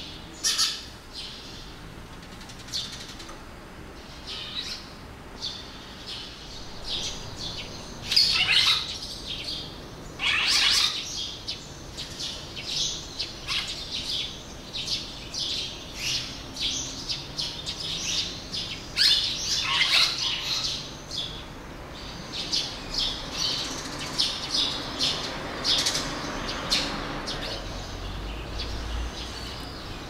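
Red-rumped swallows calling: a run of short chirps and twitters, with a few louder calls that sweep downward in pitch, the loudest about eight, ten and twenty seconds in.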